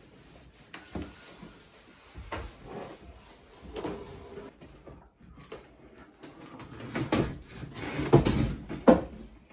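Irregular wooden knocks and clunks, like boards and parts being handled and set down, the loudest few near the end.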